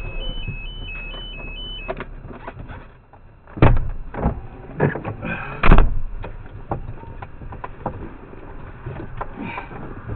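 Inside the cab of a Kenworth T659 log truck standing still: an electronic two-tone beep alternates until about two seconds in, then a run of loud knocks and thuds comes about three to six seconds in, followed by scattered small rattles.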